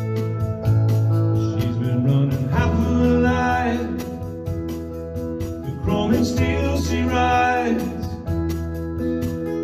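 A man singing to his own strummed electric guitar: the guitar chords ring alone at first, then two sung phrases come in, with guitar between and after them.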